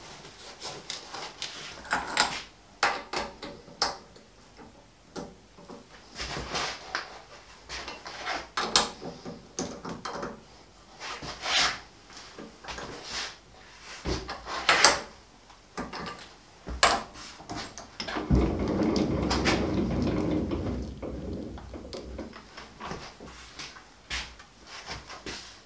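Irregular metallic clicks, knocks and clanks of steel tooling being handled and clamped as a boring bar is set in a lathe's four-way tool post and its screws are tightened with a key. About three quarters of the way through, a steady noise lasts a few seconds before fading.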